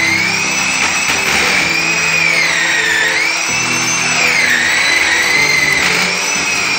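Power drill with a hole saw cutting a round hole in a plaster ceiling. Its motor whine rises and dips in pitch as the saw bites into the plaster. Music plays underneath.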